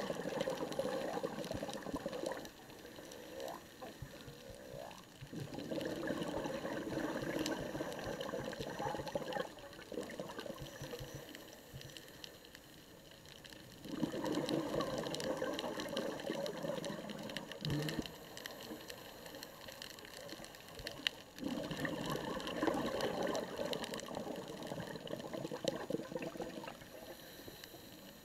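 Scuba diver's exhaled air bubbles rushing up past the regulator in about four bursts of several seconds each, with quieter pauses between them while the diver breathes in.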